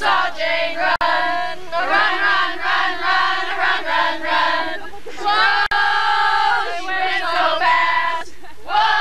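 A group of women singing and shouting a team cheer together in unison, with a short pause near the end.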